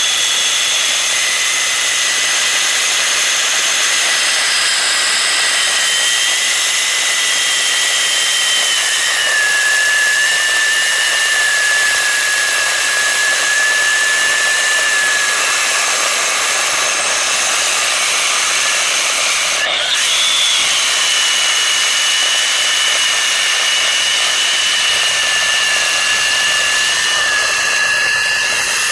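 Concrete-cutting ring saw running under load as it cuts concrete, a loud, steady high-pitched whine over grinding noise. The pitch sags a little about nine seconds in, and there is one sharp click about twenty seconds in.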